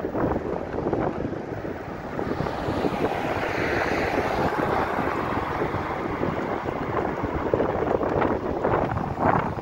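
Wind buffeting the microphone of a moving vehicle, with a steady rush of road noise beneath it; a higher hiss swells for a few seconds in the middle.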